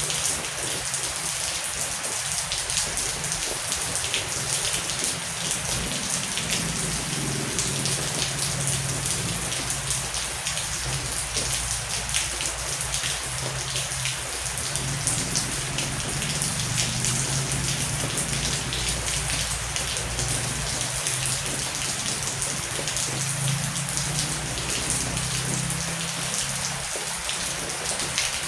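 Heavy rain falling steadily, a dense hiss full of small drop impacts. A low rumble of distant thunder runs underneath from about six seconds in until near the end.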